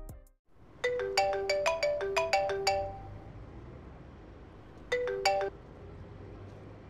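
Smartphone ringtone playing a quick melody of bright, bell-like notes. About four seconds in the melody starts over, then cuts off abruptly after a few notes.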